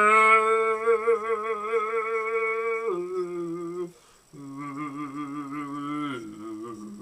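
A man singing long, drawn-out notes with a heavy vibrato. A high note is held for about three seconds and drops lower. After a short break comes a lower held note, which steps down again near the end.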